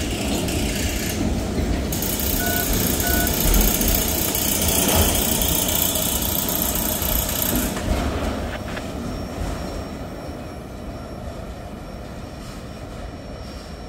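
Freight train autorack cars rolling past: a steady rumble and hiss of steel wheels on rail that drops off about eight seconds in as the last car goes by, then fades as the train moves away.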